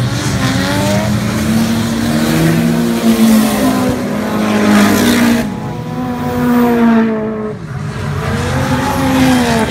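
Several drift cars' engines revving hard, their pitch rising and falling as they slide past in a group, over the noise of tyres spinning and squealing, with a brief lull a little after seven seconds in.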